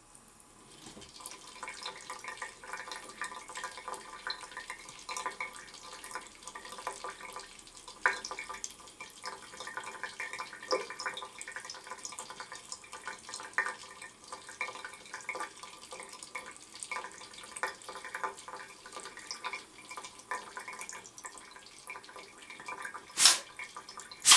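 Tap water running into a sink, splashing and dripping irregularly as a cat paws and bites at the stream. A short, loud burst comes near the end.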